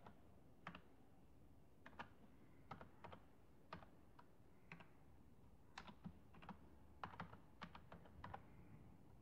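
Computer keyboard being typed on: faint, irregular key clicks, some coming in quick bunches.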